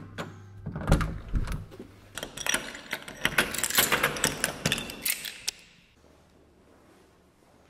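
A thud about a second in, then a key turning in a Guardian door lock: a run of metallic clicks and rattles that stops about five and a half seconds in.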